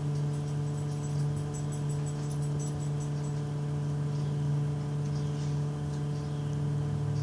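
Steady low mechanical hum with a strong single low tone and overtones, unchanging throughout.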